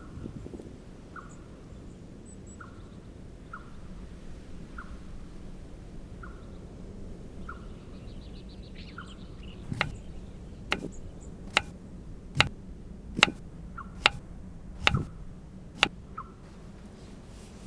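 A small bird repeating a short high call about once a second. In the second half come eight sharp knocks, evenly spaced just under a second apart, which are the loudest sounds.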